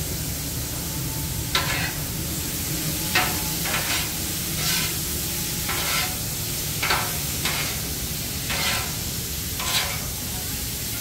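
Shrimp sizzling on a flat-top griddle while a metal spatula and fork scrape and toss them across the steel surface. There are about ten separate scrapes and clinks over a steady low hum.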